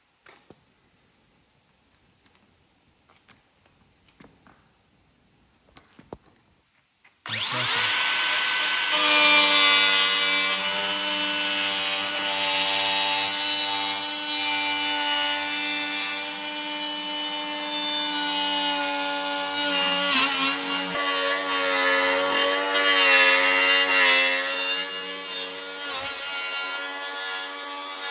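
Angle grinder starting about seven seconds in and then running continuously under load, a steady high whine whose pitch wavers slightly, with a hiss of grinding. Before it, only a few faint clicks.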